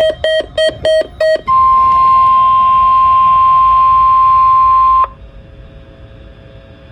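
Five quick beeps, then the NOAA Weather Radio 1050 Hz warning alarm tone held steady for about three and a half seconds. The tone cuts off abruptly, leaving a faint hum. It is the weekly test of the public warning alarm tone.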